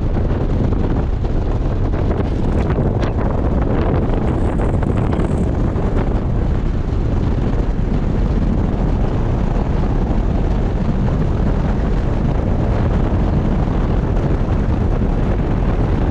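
Wind buffeting the microphone while travelling at speed, over a steady low engine rumble.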